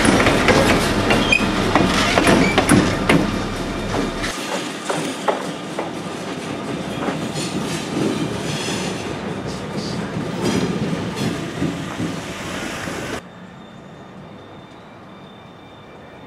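Diesel locomotives running light: wheels clacking over rail joints as the units pass close, then rolling slowly through yard switches with the engines running and some faint wheel squeal. About thirteen seconds in the sound drops sharply to a faint, distant engine.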